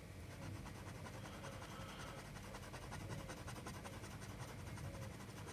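A 21-carat Sailor fountain pen nib scratching faintly on Rhodia paper in many quick back-and-forth strokes, scribbling a dense patch of ink for a wetness test.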